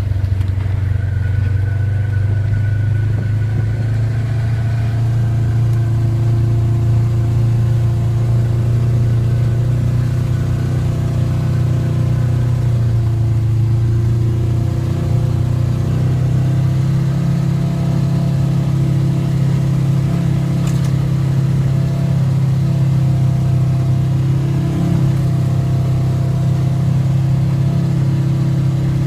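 ATV engine running steadily during a trail ride, with a low hum that rises slightly in pitch about halfway through.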